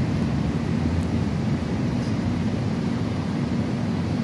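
Heavy rain falling over a city, heard from high up: a constant, even roar with a low rumble underneath.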